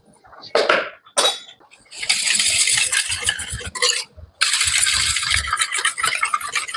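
Metal kitchen utensils clinking and scraping against a bowl: a few short clinks, then about four seconds of continuous rapid clatter.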